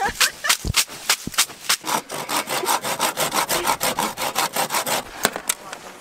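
A leafy bath broom (venik) beaten in quick repeated slaps on a bather's body while steaming. The strokes come about three a second, speed up about two seconds in, and stop about five seconds in.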